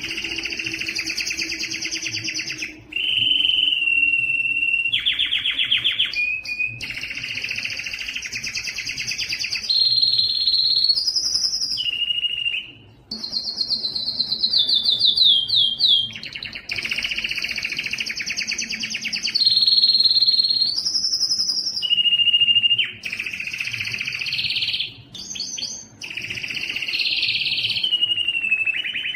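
Spanish timbrado canary singing a long song of rapid trills alternating with held steady notes, with a run of notes stepping down in pitch about halfway through. The song breaks off briefly about 3 and 13 seconds in.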